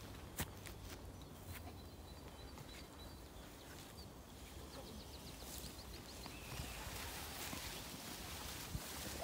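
Footsteps and the crackle of twigs and dry litter on the forest floor as a person and a dog walk through low undergrowth. A faint bird sings behind it: a thin held note, then a quick run of ticks.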